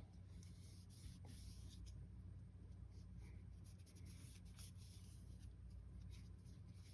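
Near silence: room tone with a steady low hum and faint, light scratching and rubbing of small handling noises.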